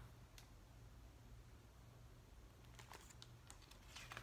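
Near silence: room tone with a low, steady hum and a few faint clicks.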